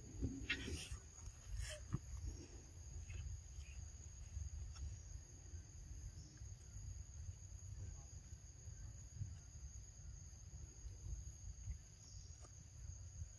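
Forest insect chorus: steady high-pitched buzzing with a higher call pulsing about twice a second, over a low rumble. A few faint rustles near the start.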